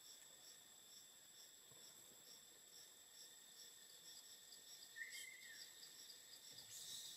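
Faint forest insect chorus: a steady high buzz with chirps pulsing about three times a second. One short high call sounds about five seconds in.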